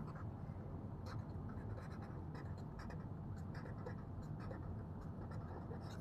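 Marker pen writing on paper: faint, irregular scratching strokes as letters are formed.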